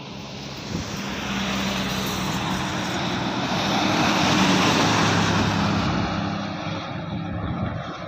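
Intercity coach bus driving past at highway speed: engine and tyre noise swell as it approaches, are loudest about four to five seconds in as it passes, then fade as it moves away.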